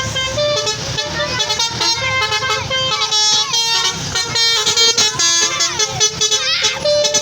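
Telolet bus horn, a multi-tone musical air horn, playing a rapid string of short notes that step up and down in pitch, some bending.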